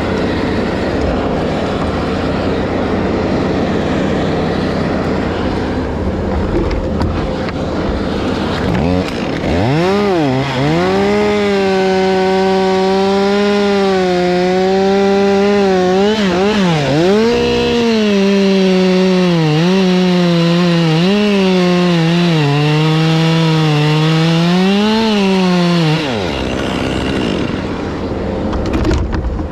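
Two-stroke chainsaw run at high revs from about nine seconds in until about twenty-six seconds, its pitch dipping and recovering several times as the throttle is eased and squeezed. A steady engine hum runs underneath before and after.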